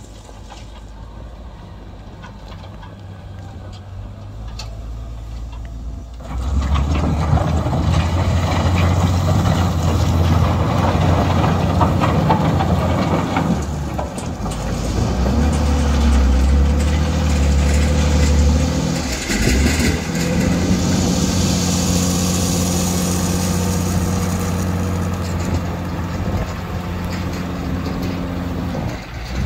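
JCB wheel loader's diesel engine running as it drives and works gravel. It is fainter at first and much louder from about six seconds in, and the engine note shifts up and down as the machine moves and works the bucket.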